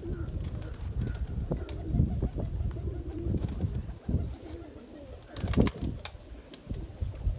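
Flock of domestic pigeons cooing, a low warbling murmur. A few sharp clicks about two-thirds of the way through.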